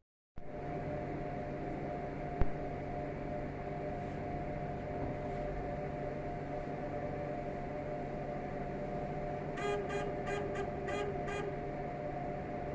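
A steady mechanical hum, with one sharp click a couple of seconds in and a quick run of six short, buzzy beeps near the end.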